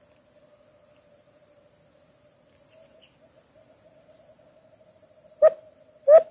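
Faint steady insect drone, then near the end a sharp click and the start of a quick run of short hooting notes, about four a second: the call of the white-eared brown dove (alimokon), imitated by a hidden trapper to lure the birds to a sticky-stick trap.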